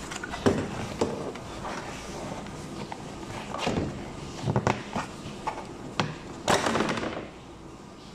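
Hands working plastic parts during a cabin air filter change: scattered clicks and knocks, then a longer rustling scrape about six and a half seconds in, like the filter sliding against its housing.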